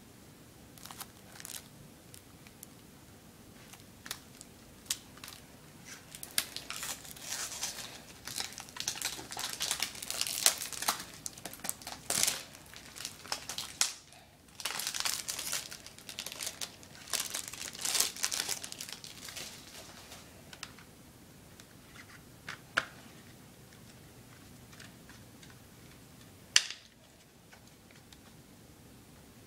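Plastic shrink-wrap on a CD case being crinkled and torn off by hand, in irregular bursts for about fifteen seconds, with a few sharp clicks before and after.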